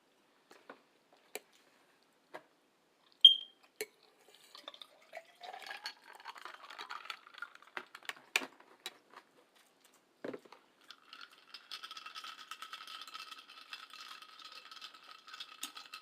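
Eating sounds close to the microphone: scattered clicks of cutlery against a plate, one of them a sharp clink a few seconds in, then faint chewing. Through the last five seconds a steady, fine crackling noise runs under it.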